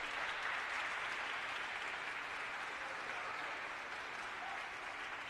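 Audience applauding, a steady patter of clapping that slowly dies down.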